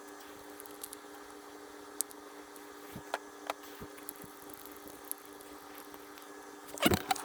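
Faint scattered taps and clicks of handling over a steady hum, then a cat meowing near the end.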